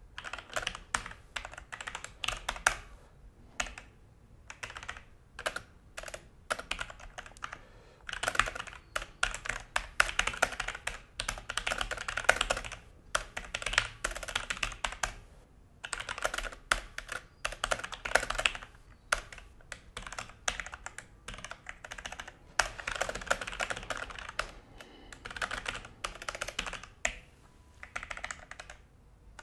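Typing on a Logitech G413 mechanical keyboard: quick runs of key clicks in bursts, broken by short pauses.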